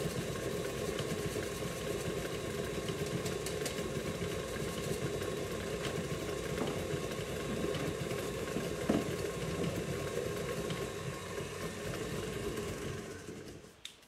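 KitchenAid stand mixer's motor running steadily while its beater creams butter and sugar in a metal bowl, with one short clack about nine seconds in. It is switched off near the end and runs down to a stop.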